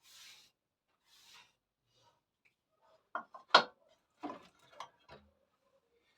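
Wood being handled at the bandsaw: a few soft scrapes, then a cluster of sharp knocks about halfway through, the loudest a single hard knock. The bandsaw is not running.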